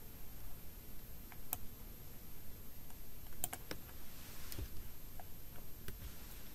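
Computer keyboard keys pressed a few times: single, separate clicks, with a quick run of three about three and a half seconds in.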